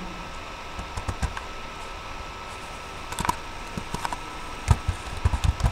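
Computer keyboard and mouse clicks: a few scattered taps, then a quick run of clicks near the end, over a steady background hiss.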